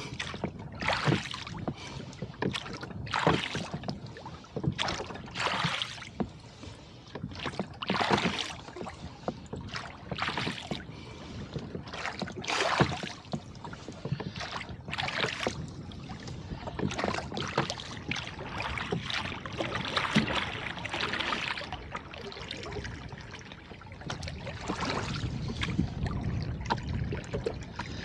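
Oars of a rowboat stroking through the water at a steady pace. Each stroke gives a short rushing splash, roughly one every two to two and a half seconds.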